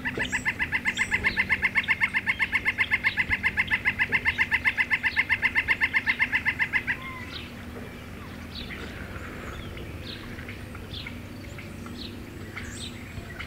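Northern flicker giving its long call: a rapid, even series of loud 'wick' notes, about seven a second, that runs for some seven seconds and then stops. Faint chirps of small birds follow.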